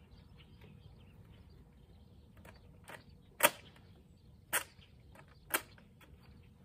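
Nerf Zombie Strike Corrupter pump-action dart blaster firing from a distance: a faint click, then three sharp snaps about a second apart, the first of the three the loudest.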